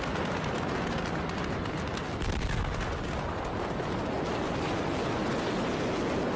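Rapid crackling and popping from the fire and explosions at the Beirut port, like heavy gunfire, with a heavier low rumble about two seconds in.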